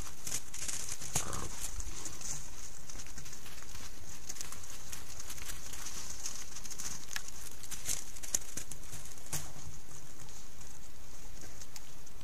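Wolves moving around close by in snow: scattered soft footfalls and rustles, with one brief falling whine about a second in, over a steady high-pitched hiss.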